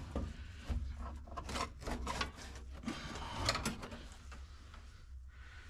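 Unbolted dashboard of a Datsun 521 pickup being tugged and lifted by hand: scattered creaks, knocks and rubbing as it shifts against whatever still holds it in.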